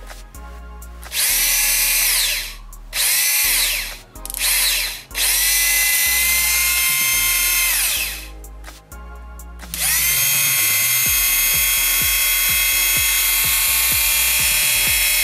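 Small 7.4 V DC motor spinning a homemade belt-driven circular saw blade, switched on and off in short test runs: a high whine that rises as it spins up and falls away as it stops, four brief runs and then one longer run of about six seconds.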